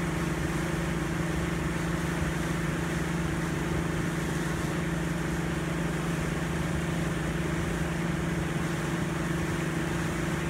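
A motorboat's engine running with a steady, even drone as the boat moves across open sea, over a constant rush of water.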